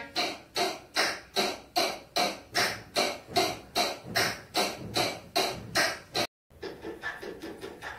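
A rhythmic loop of noisy percussive hits, about two and a half a second, each dying away quickly. It cuts out briefly after about six seconds and comes back as a quicker, quieter pattern.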